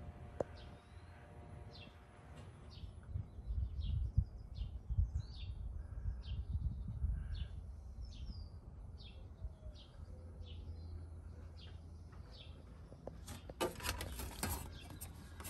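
A small bird chirping over and over, short falling calls about two a second, which stop about nine seconds in, over a low rumble. Near the end comes a burst of clicking and rustling.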